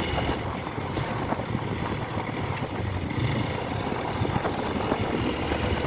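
Motorcycle on the move, with steady wind buffeting the microphone over the engine.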